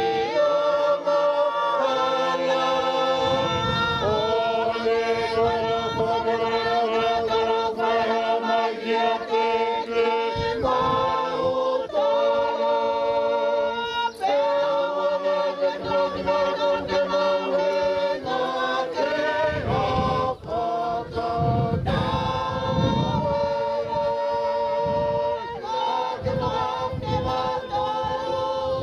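A group of mourners singing a Tongan hymn a cappella in harmony, with long held notes.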